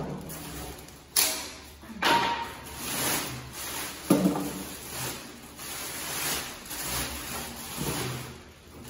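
Clear plastic wrapping rustling and crinkling as it is pulled off a stainless steel double-bowl kitchen sink, with a few sharper knocks about one, two and four seconds in.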